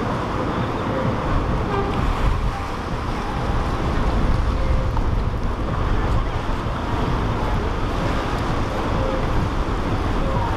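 Steady low rumble of boat engines, with waves and wind buffeting the microphone.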